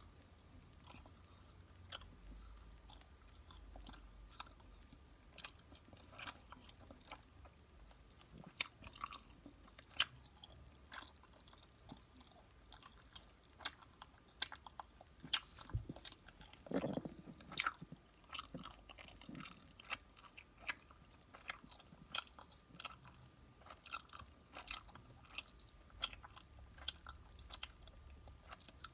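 Close-miked chewing and biting of a crunchy snack: irregular crisp crackles and clicks, with a softer, lower mouth sound about two-thirds of the way through.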